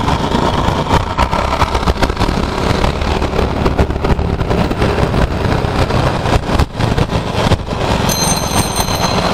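TVS Jupiter scooter running at riding speed in street traffic, its single-cylinder engine under the rumble of wind buffeting the microphone.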